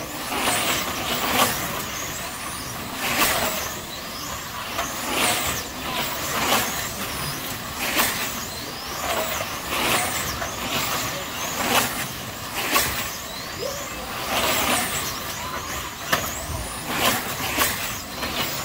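Electric slot car race trucks whizzing past on the track one after another, roughly every one and a half to two seconds, each pass a quick whoosh with a motor whine that bends in pitch as it goes by.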